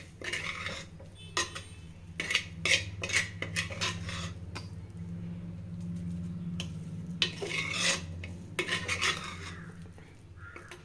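A metal spoon stirring and scraping cooked rice around a kadai, with irregular clinks against the pan. A low steady hum runs underneath.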